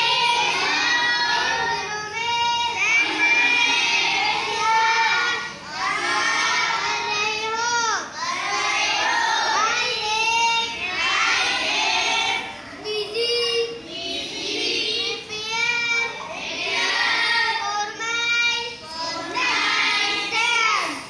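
Children's voices reciting a reading lesson aloud in a sing-song chant.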